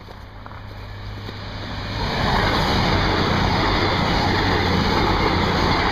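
Passenger train passing close by on the track, its rushing noise building over the first two seconds, holding loud, and starting to fall away near the end.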